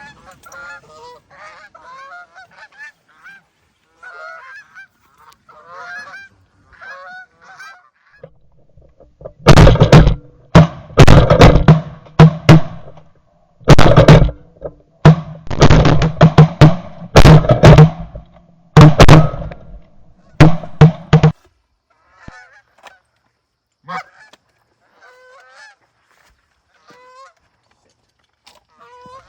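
Canada geese honking. Faint, scattered honks for the first nine seconds or so, then about twelve seconds of very loud, rapid honking close by, falling back to faint honks near the end.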